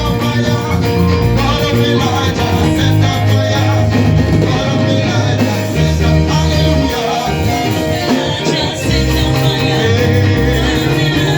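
Church worship music with a bass line stepping between notes, guitar, and singing.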